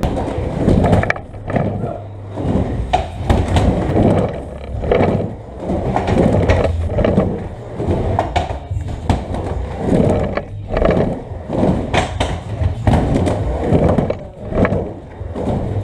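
Skateboard wheels rolling back and forth on a wooden mini ramp. The rumble swells and fades with each pass, and there are sharp clacks now and then.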